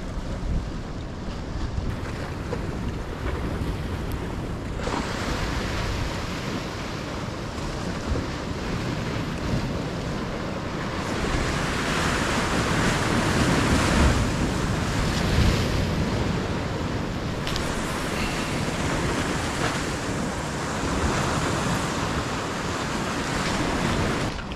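Sea waves breaking and washing over rocks, swelling louder in surges a few seconds long, loudest about halfway through, with wind rumbling on the microphone.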